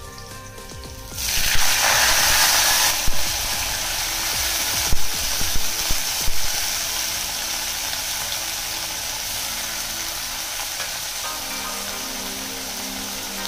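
Wet chopped fenugreek leaves hitting hot oil in a kadhai: a sudden loud sizzle about a second in that settles into a steady frying sizzle, with a few knocks against the pan.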